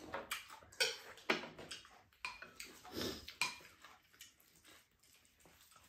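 Spoons and chopsticks clicking and scraping against ceramic bowls as two people eat, a quick run of light taps that thins out after about three and a half seconds, with soft eating sounds among them.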